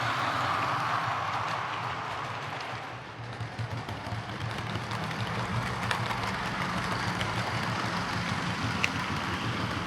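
Hornby OO gauge Class 43 HST model locomotive running on the track with its newly fitted replacement motor: a steady motor whir and wheel noise with scattered small clicks from the wheels over the rail joints. It dips a little about three seconds in, then picks up again.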